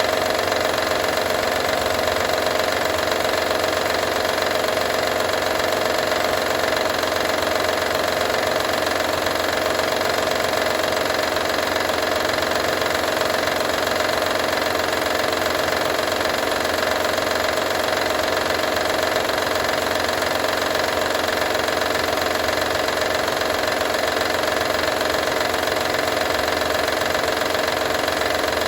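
2012 Honda Odyssey's 3.5-litre V6 running steadily at idle, with the rattle the owner is asking to have diagnosed.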